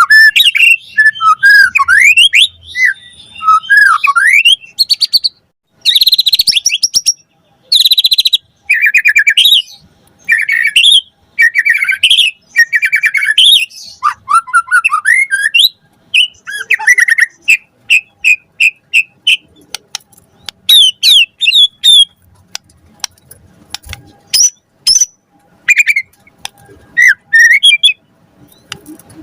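White-rumped shama singing continuously in a fast run of varied phrases: rising and falling whistles, harsh chatters and strings of quick repeated notes, a full song of the kind birdkeepers play to set other shamas singing.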